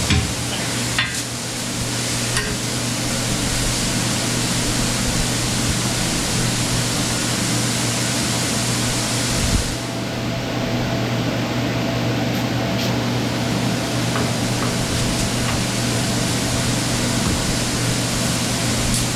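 A machine running steadily: an even, loud hiss over a constant low hum.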